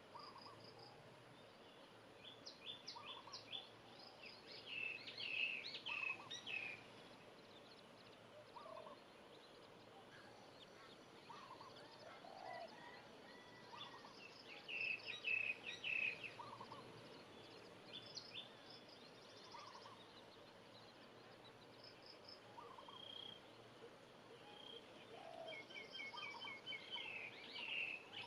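Baby chicks peeping: three bursts of rapid, high cheeps, with softer single peeps in between.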